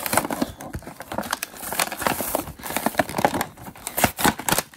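Plastic blister pack crinkling and the cardboard card backing tearing as an action figure's packaging is peeled open by hand: a dense run of irregular crackles and rips.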